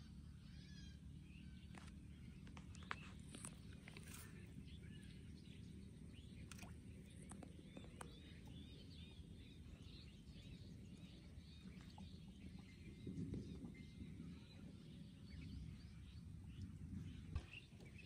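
Faint rural open-air ambience: small birds chirping over a low steady rumble, with a few light clicks and a brief rustle about two-thirds of the way through.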